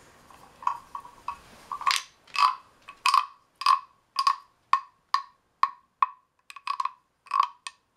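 Carved wooden croaking frog (frog güiro) rasped with its wooden stick along the ridged back, giving a run of frog-like croaks at about two a second, each with a hollow wooden ring. The first few croaks are faint; they grow louder and more even from about two seconds in.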